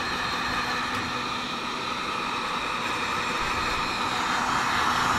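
Heat gun running, blowing hot air to shrink heat-shrink tubing onto a coil spring assembly: a steady blowing rush with a faint low hum under it, growing slightly louder near the end.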